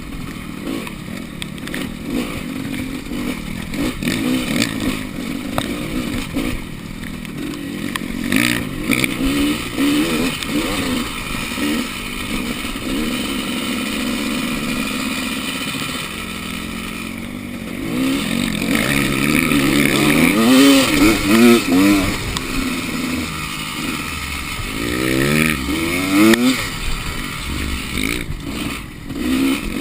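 Enduro motorcycle engine revving up and down as it is ridden, its pitch repeatedly climbing and dropping, with the loudest revs about two-thirds of the way through.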